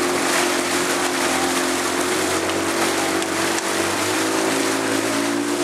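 Motorboat engine running at a steady speed, a constant hum whose pitch steps slightly a couple of times, over a hiss of wind and water.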